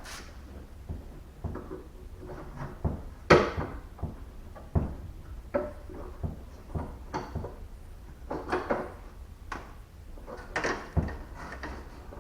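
Irregular clicks, knocks and rattles of hand work on a car door's inner handle hardware as the door handle's linkage rod is worked free. The loudest knock comes about three seconds in.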